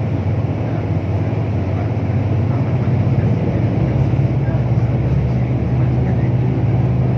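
Steady engine drone and road noise heard from inside a moving road vehicle travelling along a highway, with a low hum that holds even throughout.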